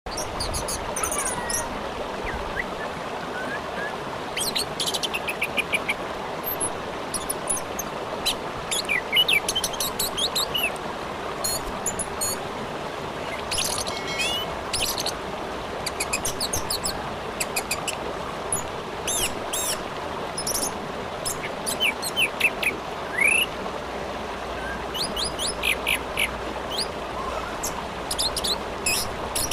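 Orange-headed thrush singing in repeated bursts of rapid high chirps and trills with quick downward-sweeping notes, over the steady sound of a flowing river.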